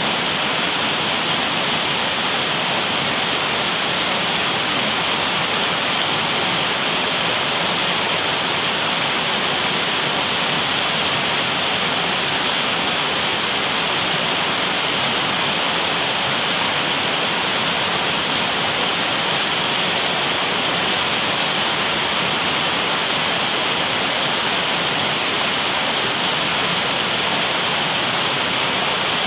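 Steady rushing of a stream, an even, unbroken noise of running water.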